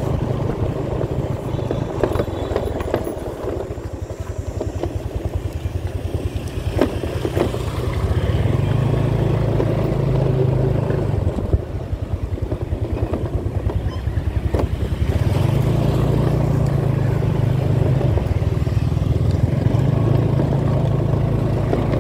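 Motorbike engine running steadily on the move, with road noise. The engine gets louder about eight seconds in, eases off for a few seconds, then picks up again and holds.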